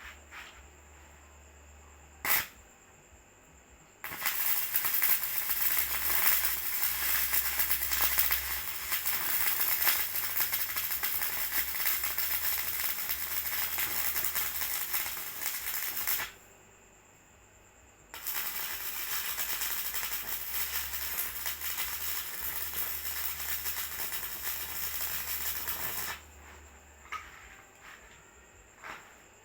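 Electric arc welding on corn sheller teeth: a steady hard crackle and sizzle of the arc in two runs, about twelve seconds and then about eight seconds, with a short break between them. A single sharp click comes a couple of seconds before the first run.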